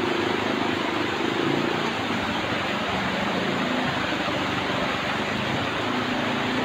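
Heavy rain falling steadily, a dense even hiss, with a faint low murmur underneath.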